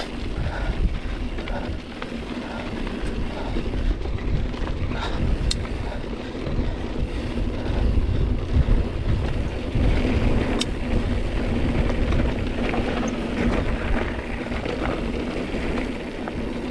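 Wind buffeting the microphone while riding a mountain bike along a trail, over a steady rumble and rattle of the moving bike. A steady low hum runs underneath, and there are two sharp clicks, about five and ten seconds in.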